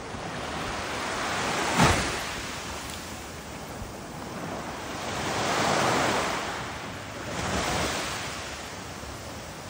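Small waves breaking and washing up a sandy shore, swelling and fading every few seconds. A brief sharp crack comes just before two seconds in.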